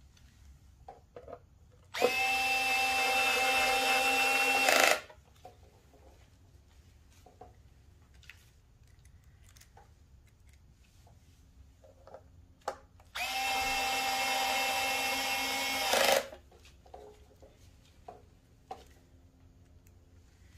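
Cordless electric screwdriver on its lowest torque setting running twice, about three seconds each, driving screws into a plastic cover; each run ends abruptly. Faint clicks of handling the screws and bits come in between.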